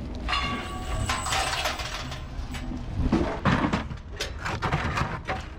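Scrap metal clanking and scraping, with a short metallic squeal near the start followed by irregular knocks and clatter.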